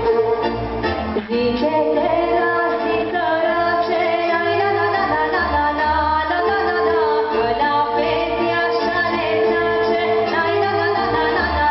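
A young woman singing a Romanian folk song into a microphone over instrumental backing music, holding several long notes.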